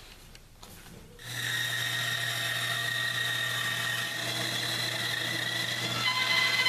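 A bandsaw is switched on about a second in and then runs steadily, a low motor hum under a high whine. Near the end the sound gets slightly louder and a new tone joins in.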